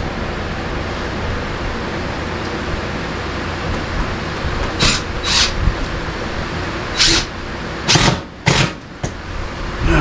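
Steady rushing background noise, with a cordless drill run in several short bursts from about five seconds in, driving screws into a plywood wall, and a couple of knocks near the end.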